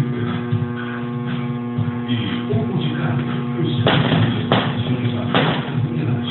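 Steady electrical hum with quiet background music. A little after halfway through come three short rustling scrapes as the fat tabby cat's body rubs against the door edge while she squeezes into the gap.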